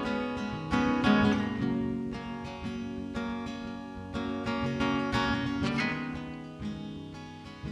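Acoustic guitar playing a strummed and picked instrumental intro, chords ringing on between strokes.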